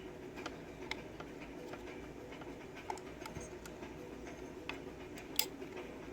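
Scattered small clicks and taps of metal tools against a lock as a follower is tried in it to push out the plug, the sharpest click about five and a half seconds in, over a steady low hum.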